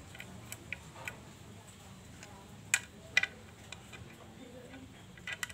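Sharp metal clicks and clinks from parts being handled inside the opened, oil-filled clutch housing of a Kawasaki Kaze R. There are a few light ticks in the first second, then louder clicks a little under three seconds in and a cluster near the end.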